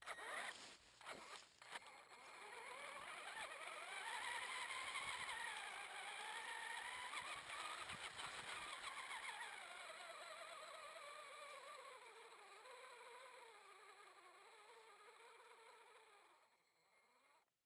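Traxxas Summit RC truck's electric motor and drivetrain whining, its pitch wavering up and down with the throttle, then slowly dropping and fading before it cuts off near the end. A few clicks come first.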